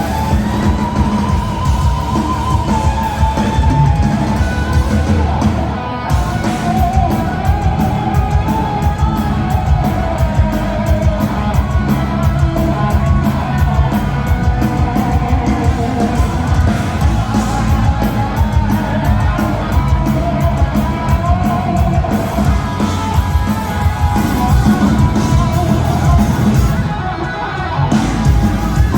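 Live heavy metal band: a lead electric guitar carries a gliding melody over distorted rhythm guitar, bass and drums, with loudness dipping briefly twice.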